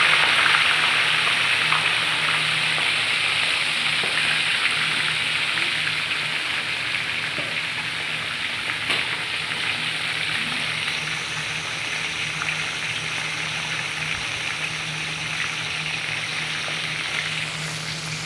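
Whole fish deep-frying in a large steel wok of hot oil: a steady sizzle of the bubbling oil that slowly gets quieter.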